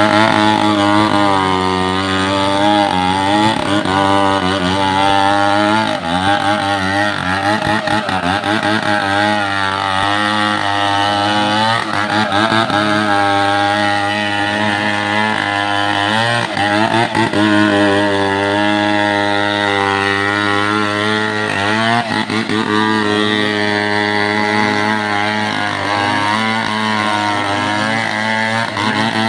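Two-stroke chainsaw engine running continuously, its pitch rising and falling again and again as it revs up and down.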